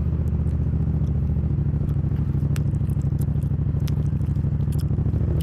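A steady low engine rumble with a fast, even flutter, and a few faint clicks over it.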